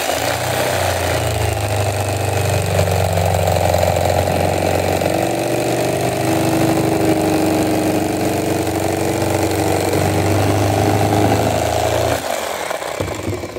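Electric kitchen knife running steadily as its reciprocating blades saw through dense upholstery foam; the motor switches off and winds down near the end.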